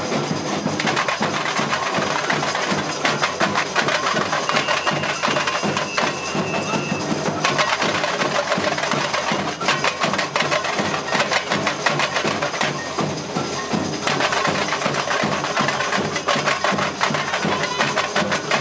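Samba bateria drumming: tamborims and other drums struck together in a fast, dense samba rhythm. A held high tone sounds over the drums for a couple of seconds about five seconds in.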